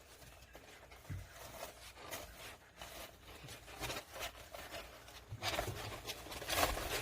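Soft rustling and scraping, in scattered short bursts that grow louder near the end.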